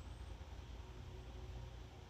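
Quiet woodland ambience: a steady low rumble and faint hiss, with one thin, very high bird chirp gliding upward right at the start.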